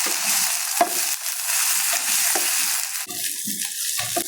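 Chili paste, onion and spices sizzling in hot oil in a pan while being stirred, with a few short knocks; the sizzle eases about three seconds in.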